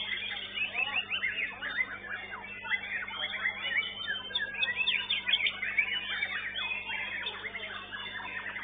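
Many songbirds singing at once in rapid, overlapping whistles and sweeping chirps, among them a caged white-rumped shama (murai batu) competing in a song contest, over a steady low electrical hum.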